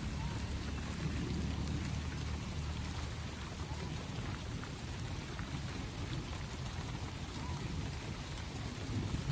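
Steady rushing noise with a low rumble underneath, with no single clear source standing out.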